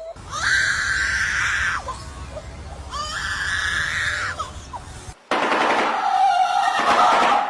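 Bird screaming twice, each a long harsh call with a quick rising start. After an abrupt cut about five seconds in, a rapid, harsh, rattling bird sound follows.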